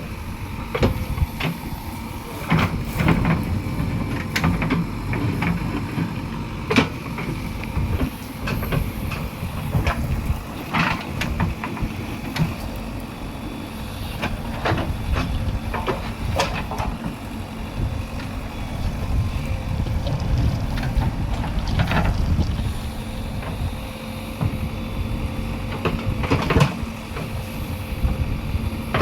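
JCB 3DX backhoe loader's 76 hp diesel engine working under load, a continuous low rumble with a steady whine over it. Sharp knocks and clanks of the machine working break in about ten times.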